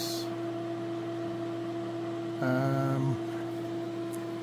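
Steady electrical hum from a SunGold 18 kW LFPV-series inverter charger, powered up and running on grid power. Just past halfway, a short, louder low-pitched tone lasts under a second.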